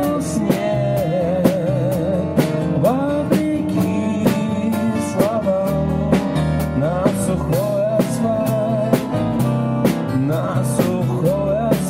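Live band playing a song: strummed acoustic guitars and an electric bass keeping a steady beat, with a wavering lead melody line over them.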